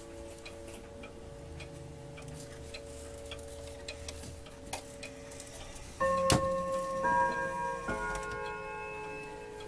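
German pendulum wall clock ticking steadily, with faint chime tones dying away. About six seconds in its chime strikes: ringing notes begin with a sharp click, and new notes come in about a second apart and keep ringing.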